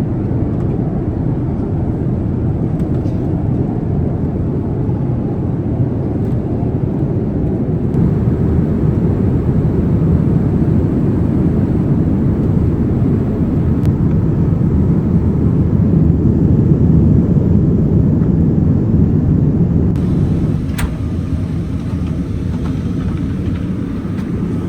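Steady low rumble of airflow and engine noise inside a Boeing 787-9 airliner cabin in flight. The tone of the noise shifts slightly about twenty seconds in, with a single sharp click.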